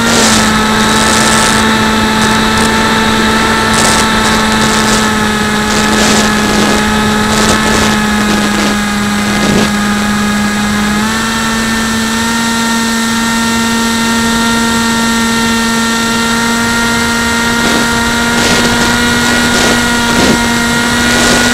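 Steady high whine of a small remote-controlled aircraft's electric motor, picked up by the camera riding on board. The pitch steps up slightly about halfway through.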